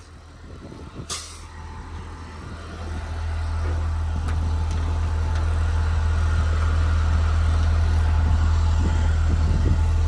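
A school bus's diesel engine idling steadily, with a sharp click about a second in as the wheelchair-lift door's latch is worked. The engine grows louder about three seconds in and then holds steady.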